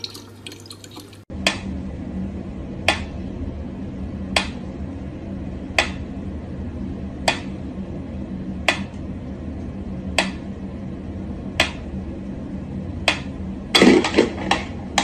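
Mechanical pyramid metronome ticking slowly and evenly, about one tick every second and a half, nine ticks in all, over a low steady hum. Near the end comes a louder burst of clatter.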